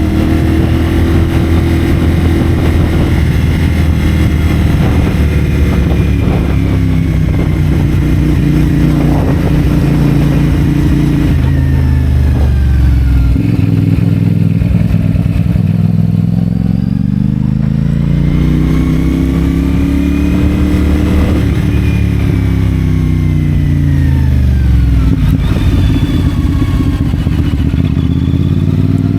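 CFMoto 450SR's parallel-twin engine through a Yoshimura AT2 slip-on exhaust, running under way. It holds a steady speed at first, drops away as the bike slows a little before halfway, stays low for a few seconds, then rises again as it accelerates, with another brief dip and pick-up near the end.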